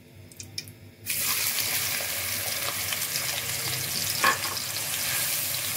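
Sliced red onions tipped into hot oil in a pan, setting off a sudden sizzle about a second in that carries on as a steady frying hiss.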